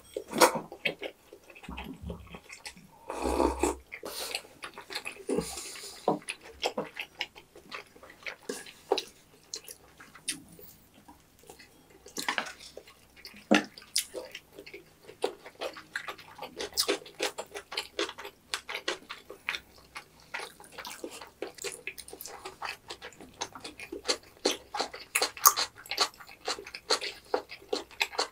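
Close-miked eating sounds: a slurp of fish-cake soup from a bowl at the start and another a few seconds in, then wet chewing and mouth clicks as tteokbokki and fried snacks are eaten.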